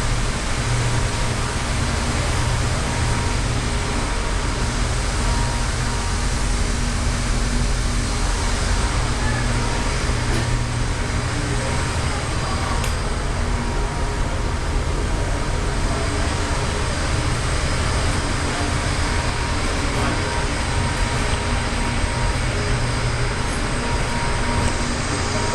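A steady low mechanical rumble with a constant hum and hiss, unchanging throughout.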